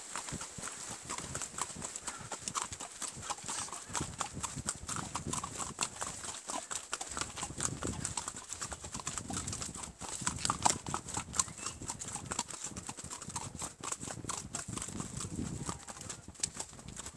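Horse's hooves clip-clopping steadily as it walks along a trail.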